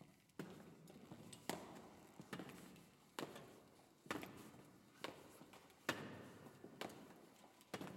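Slow, hard-soled footsteps, about one step a second, each ringing briefly in a large stone-walled hall.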